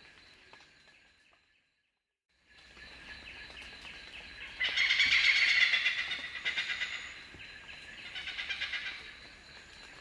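Oriental pied hornbill calling: loud, shrill runs of rapid repeated 'kek-kek-kek' notes, a strong run about halfway through and a weaker one near the end.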